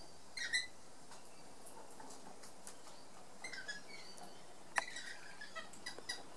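Birds calling in short, scattered high chirps and squeaks, with a loud chirp about half a second in and a busier run of sharp notes in the second half.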